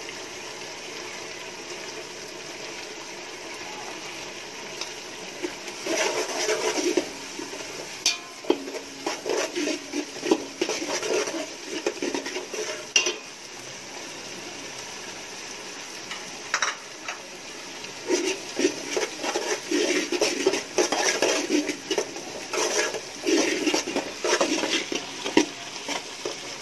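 A steel spatula stirs and scrapes around a steel pot in which spice powder and herbs are frying in oil and butter, over a steady sizzle. The scraping and clinking strokes start about six seconds in and go on irregularly.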